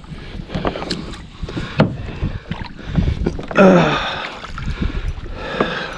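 Knocks and bumps of handling on a plastic fishing kayak, gear and hands striking the hull, with a short wordless vocal sound from the angler about three and a half seconds in.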